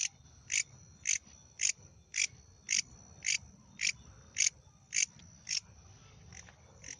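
Insect calling at night with short, sharp, high chirps at an even pace of about two a second, over a thin steady high tone; the chirps falter briefly near the end.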